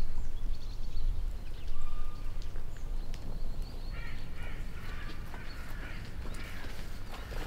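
Outdoor ambience: a steady low rumble with birds calling, short whistles early on and a run of quick chirps from about four seconds in.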